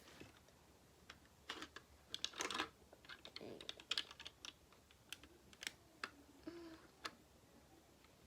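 Plastic Lego pieces being handled and fitted. They make irregular light clicks and small clatters, sometimes several in quick succession.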